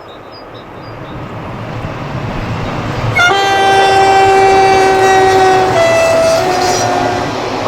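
An approaching French electric train's rumble grows louder, then its horn sounds a long steady blast that steps down to a lower note and back up again near the end.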